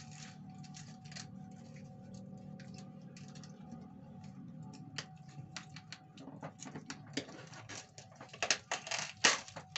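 Plastic wrappers on chocolates crinkling and crackling as they are unwrapped by hand: scattered small crackles that grow denser and louder over the last two seconds.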